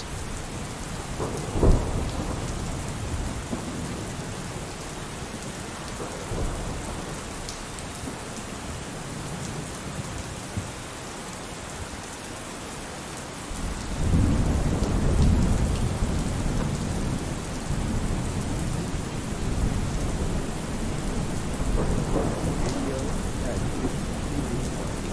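Steady rain, with a low rumble of thunder rolling in about halfway through and a single thump about two seconds in.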